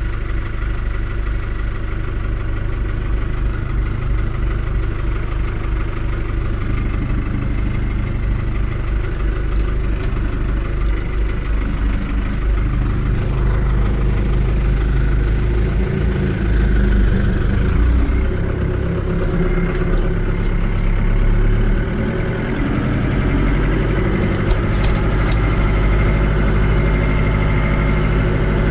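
Fiat 80-90 DT tractor's diesel engine running, heard from inside the cab. It runs steadily, and its speed rises and drops a few times past the middle.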